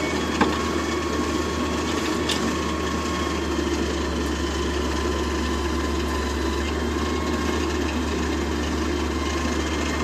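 Diesel engines of an excavator and a small tractor running steadily while soil is loaded into the tractor's trolley, with one sharp knock about half a second in.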